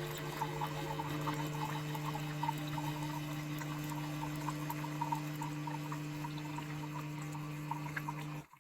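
Tassimo pod coffee machine brewing: its pump hums steadily while coffee trickles and drips into the cup, and the pump cuts off suddenly near the end.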